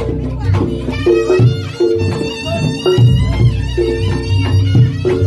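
Traditional Javanese music with regular drum beats, repeated pitched gong tones and a high, wavering melody line.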